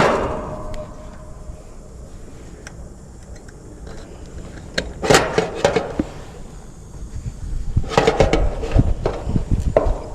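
A sharp metallic clank with a short ringing tail, then scattered clicks and taps of hand work on the unit's capacitor wiring, with more clicking near the end.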